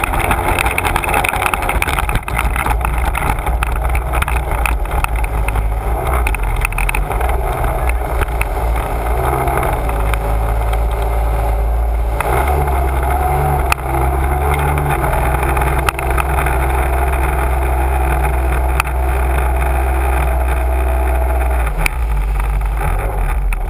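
Sea-Doo personal watercraft running at speed across a lake: a loud, steady engine drone mixed with the rush of water spray along the hull. The engine note shifts about halfway through.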